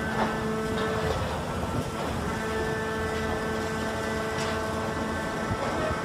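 Hydraulic alligator shear running at a steady pitched hum with several tones, with a few faint clicks; one of the tones drops out for about a second and then returns.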